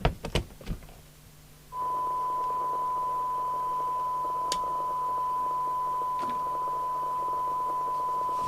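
A few clicks of a plug being pushed in, then about two seconds in a steady single-pitch test tone starts from the CB radio's speaker with a light hiss under it and holds: the receiver demodulating a tone-modulated test signal for a SINAD sensitivity check.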